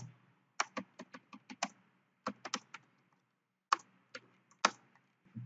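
Computer keyboard typing: three short runs of separate keystroke clicks, with pauses of about half a second to a second between them.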